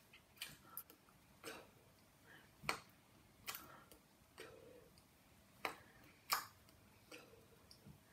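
Faint, irregular clicks and taps, about a dozen over eight seconds, from a person signing in sign language: hands meeting and brushing, and small lip and mouth sounds as the words are mouthed silently.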